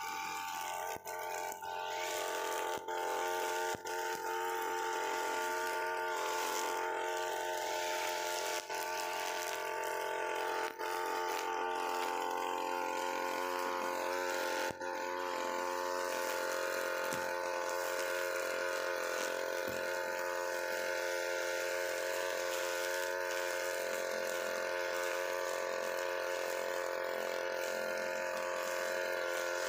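UM328 brushcutter engine running steadily at high speed while its 2.4 mm nylon line cuts grass down to the soil. The sound dips briefly a few times in the first fifteen seconds.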